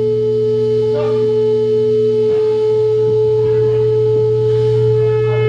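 Loud steady sine tone from a loudspeaker, tuned to a wine glass's resonant frequency to shatter it, with a low hum beneath. A lower second tone drops out a little over two seconds in, and faint ticks come and go over the tone.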